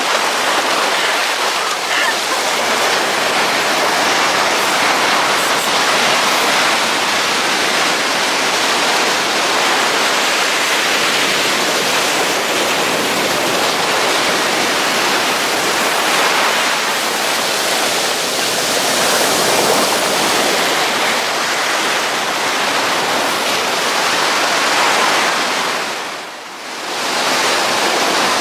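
Steady rush of ocean surf washing onto a sandy beach, dipping briefly near the end.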